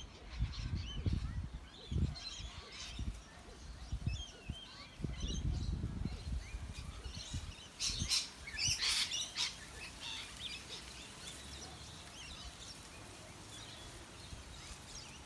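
A flock of birds calling in a tree at dusk, many short overlapping chirps and squawks, busiest about eight seconds in. In the evening the birds squabble over their roosting branches. Low rumbles on the phone's microphone come in a few times.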